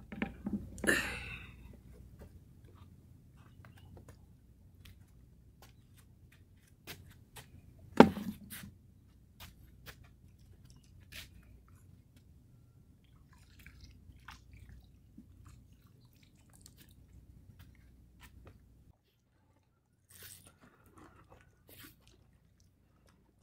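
Scattered clicks and knocks of things being handled on a dock, with one loud knock about eight seconds in, over a faint low rumble that stops about nineteen seconds in.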